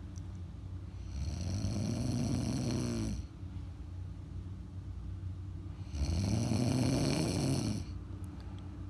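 A sleeping woman snoring: two snores, each about two seconds long, about five seconds apart.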